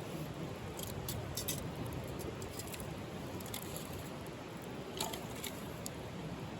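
Wood fire crackling: irregular sharp pops and ticks from burning firewood over a steady low rush, the loudest pop about five seconds in.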